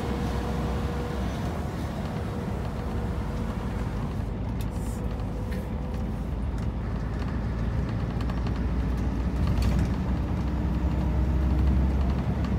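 Scania R730's V8 diesel engine pulling in a high gear at low revs, heard from inside the cab as a steady deep rumble that grows louder over the last few seconds.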